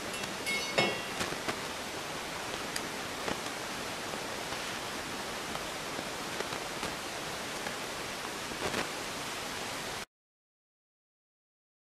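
Steady background hiss with a few light metallic clinks from small brass clock-gear parts being handled, the clearest just under a second in. The sound cuts out to dead silence about ten seconds in.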